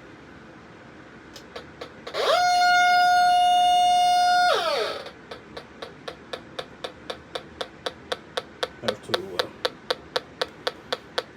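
Electronic gas leak detector switching on: a loud steady alarm tone glides up, holds for about two seconds and drops away, then the detector settles into steady ticking at about four a second. The reading always shoots up at switch-on until the detector is calibrated to the proper sensitivity.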